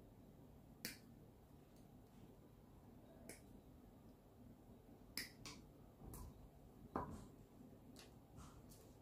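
Quiet, scattered light clicks and taps of small hard plastic model-kit parts and small tools being handled and set down on a table, about nine in all, the loudest a fuller knock about seven seconds in.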